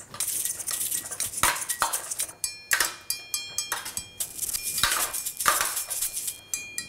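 Metal spoon stirring diced potatoes and peppers in a steel roasting pan: irregular scrapes and clinks of spoon on pan, some of them ringing briefly.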